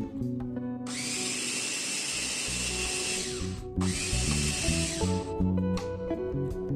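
A small electric kitchen appliance motor runs in two bursts, a long one of about three seconds and then a short one of about a second, with a steady whine. Guitar music plays underneath.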